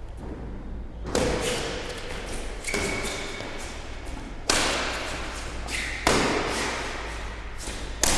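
Badminton rally: five sharp racquet strikes on a shuttlecock, about one every second and a half, each ringing out in a large hall.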